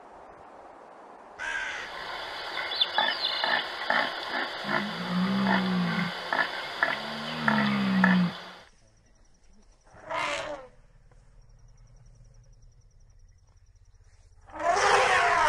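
Red deer stags roaring in the rut: two deep, drawn-out bellows about two seconds apart. Then an elephant calls twice, a short burst about ten seconds in and a longer one near the end.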